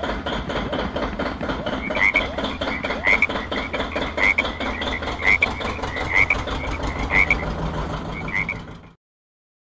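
Frog croaking in a fast, even rhythm, with a higher call repeating about once a second from about two seconds in; the sound cuts off abruptly near the end.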